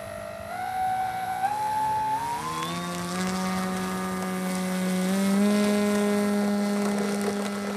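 Electric motor and propeller of an R/C Seamaster flying boat, a buzzing whine that rises in pitch in several steps as the throttle is advanced, then holds a steady high pitch.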